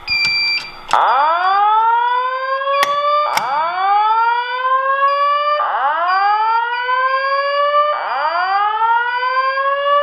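Wheelock SafePath voice evacuation panel sounding a whoop alert tone through a Simplex speaker: four rising sweeps a little over two seconds apart, starting about a second in. This is the alert tone that leads into the chlorine alarm message. A steady high beep runs beneath.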